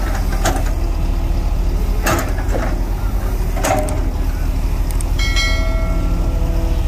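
JCB 140 tracked excavator's diesel engine running steadily under load while the bucket digs into earth and tree roots, with a few sharp knocks in the first four seconds. A brief high-pitched squeal comes a little after five seconds.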